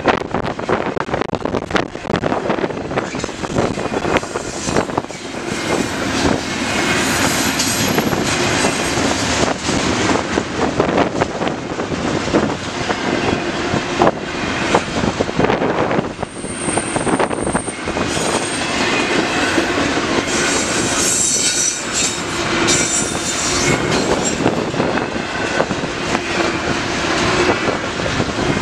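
CN intermodal freight train rolling past close by: a continuous loud rumble of cars with a steady patter of wheel clicks over the rail joints, and a brief high wheel squeal about sixteen seconds in.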